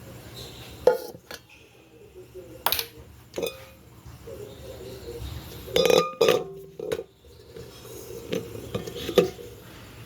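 Kitchen dishes and utensils being handled: a series of separate clinks and knocks of crockery, glass and cutlery, several loud ones around a second in, about six seconds in and near the end.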